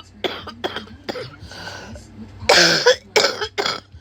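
A woman coughing from a cold with a sore throat: a few smaller coughs in the first second, then three hard coughs in quick succession about two and a half seconds in.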